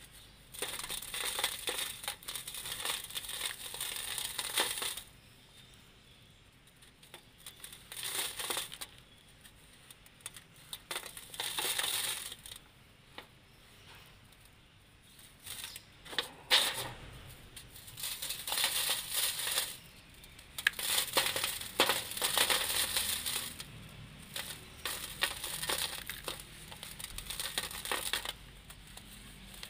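Dry sand-cement lumps crushed and crumbled by hand, gritty crunching with powder and crumbs trickling down, in bouts of a few seconds with short pauses between.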